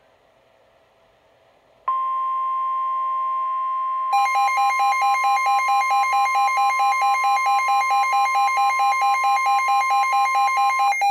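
NOAA Weather Radio warning alarm tone, one steady tone that starts about two seconds in, announcing a new warning. About two seconds later, the weather radio's own alert beeper joins with a rapid pulsing beep, about four pulses a second. The beeper keeps going after the steady tone stops near the end.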